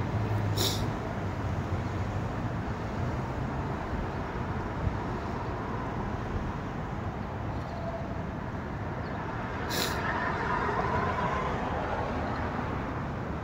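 Street traffic: a steady hum of passing cars, swelling about ten seconds in, with two brief high hisses, one about a second in and one near ten seconds.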